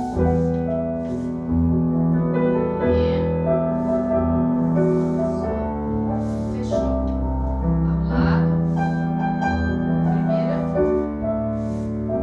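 Ballet class piano music at a slow tempo, with long held notes and chords changing every second or two.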